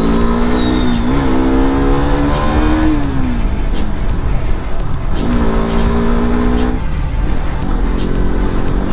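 KTM RC sport bike's single-cylinder engine under way through the gears. Its pitch dips briefly about a second in, climbs until about three seconds, then falls away, steps up again around five seconds and settles to a steady cruise.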